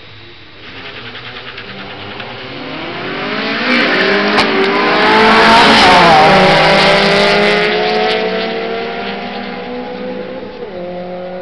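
Two street-racing cars accelerating hard from a standing start. Their engines climb in pitch and get louder as they come, peak as they pass about six seconds in, then drop in pitch and fade as they pull away.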